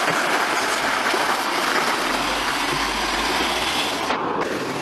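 Heavy truck driving past close by: a steady rush of engine and tyre noise, with a deeper rumble swelling about two seconds in and fading near four.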